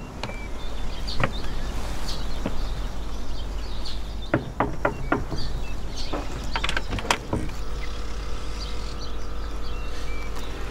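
Knocking on a door: a run of four quick, evenly spaced raps a little under halfway in, then another cluster of knocks, with single knocks before them. Short bird chirps and a low steady rumble run underneath.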